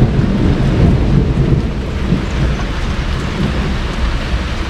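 Heavy rain falling steadily during a thunderstorm, with a deep, continuous low rumble underneath.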